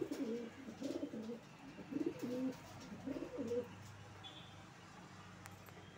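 Domestic fancy pigeons cooing: about four low rolling coos in the first three and a half seconds, then the cooing stops.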